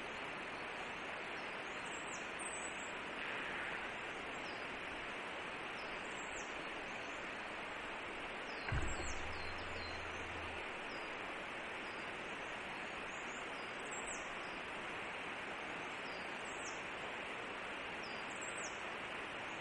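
Steady outdoor forest background hiss with short, high chirps repeating every second or two. About halfway through, a single knock is followed by a low hum lasting about two seconds.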